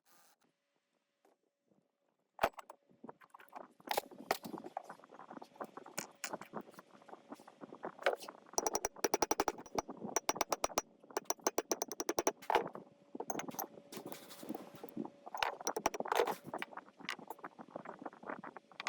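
Hand work on metal parts: a series of sharp clicks, knocks and scrapes, with runs of rapid, evenly spaced clicking about halfway through, over a faint steady hum.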